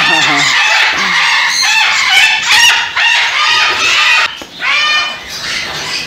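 Large parrots screeching and squawking, loud harsh calls one after another with a short lull about four and a half seconds in.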